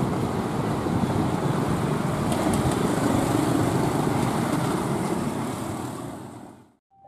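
Diesel locomotive's engine running and train wheels rolling as a passenger train approaches slowly through the station, a steady loud rumble that fades out near the end.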